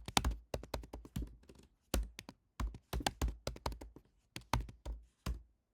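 Computer keyboard typing: irregular clusters of key clicks with short pauses between them.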